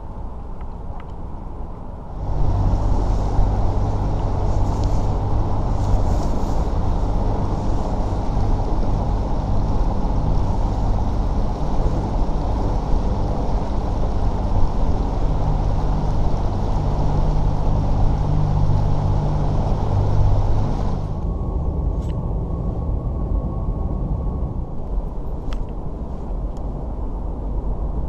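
A bass boat's outboard motor running at speed, a steady low drone with rushing wind and water noise over it, starting suddenly about two seconds in. About 21 seconds in the rushing hiss drops away and a lower steady rumble goes on.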